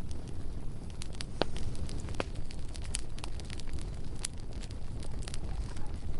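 Bonfire crackling: irregular sharp pops and snaps from the burning wood over a steady low rumble of the flames.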